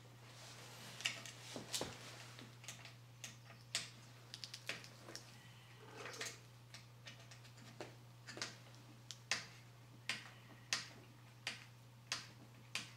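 Irregular light clicks and ticks of a hex key working at the hex cap screws and plastic cover of a Prusa MK3S printer's display board, over a steady low hum.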